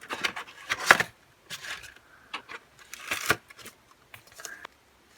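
Plastic CD case being handled: a run of irregular clicks, taps and crinkly rustles, loudest about a second in and again around three seconds in.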